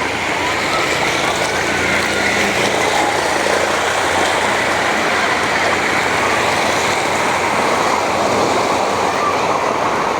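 Steady, loud rush of fast-flowing floodwater.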